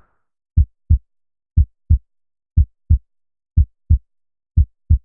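Heartbeat sound effect: pairs of short, low thumps (lub-dub) repeating about once a second, with silence between the beats.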